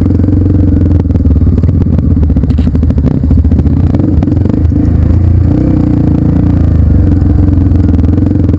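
Trail motorcycle engine running steadily, with clattering and scraping over it.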